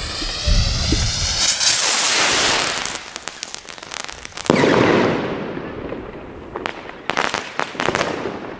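Funke Crackerschweif (gold cracker) firework rocket: its motor hisses and whooshes as it lifts off about two seconds in, trailing scattered crackles. It bursts loudly about halfway through, and near the end its stars crackle in a rapid cluster of sharp pops.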